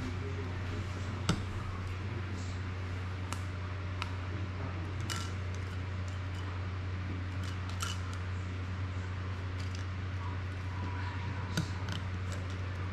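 Scattered small clicks and snaps of hands and small tools working on an FPV drone frame, about half a dozen, the sharpest about a second in, over a steady low hum.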